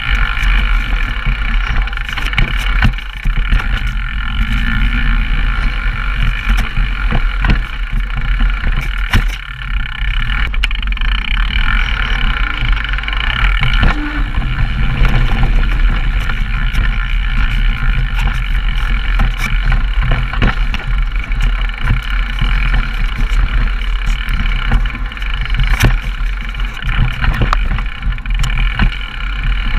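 Downhill mountain bike descending a rough dirt trail, heard through action cameras riding with it: a continuous rumble and rush of tyres and wind, broken by frequent sharp rattles and knocks from the bike over the terrain.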